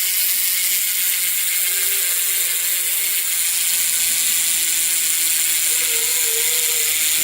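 BMX bike's rear hub freewheeling as the back wheel spins, its pawls ticking so fast they make a steady, even buzzing whir.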